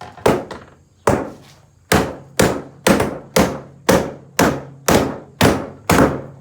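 Repeated heavy blows striking a refrigerator's cabinet during demolition, about eleven hits with a short ring after each, quickening to roughly two a second.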